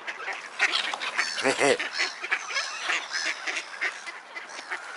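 A crowd of ducks and gulls calling over one another, many short overlapping calls, with a louder, lower call about a second and a half in.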